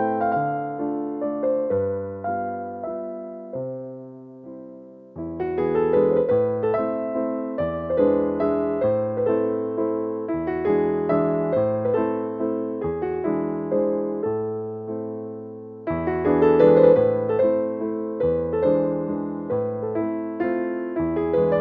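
Background music: a solo electric piano plays chords and a melody, fades briefly, then comes back in louder about five seconds in.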